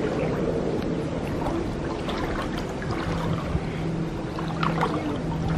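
Water sloshing as a bare foot dips and moves in shallow pool water, over a steady low hum.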